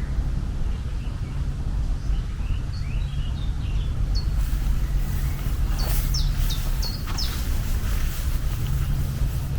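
Birds chirping with short, quick falling calls, several in a cluster about six seconds in, over a steady low rumble of ambient nature sound.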